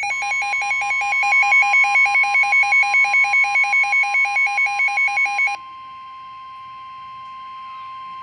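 NOAA Weather Radio warning alarm tone: one steady, high, unbroken electronic tone that signals a severe weather warning is about to be read. For the first five and a half seconds a rapidly pulsing, higher-pitched electronic alert beeps over it, then cuts off suddenly.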